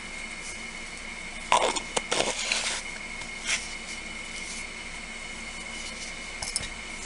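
Brief handling noises as craft materials are worked at a table: a cluster of clattering, scraping sounds about a second and a half in, a softer one a second later, and a couple of light clicks near the end, over a steady background hum.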